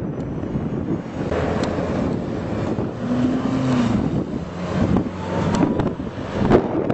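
Wind buffeting the microphone over city street traffic, with vehicles driving along the road below. A short steady tone sounds about three seconds in, and a few sharp knocks come near the end.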